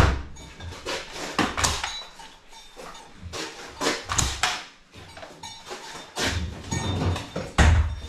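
Irregular clacks and knocks of milking-unit hoses and fittings being pulled off a stainless-steel wash manifold and handled, with a few heavier thuds.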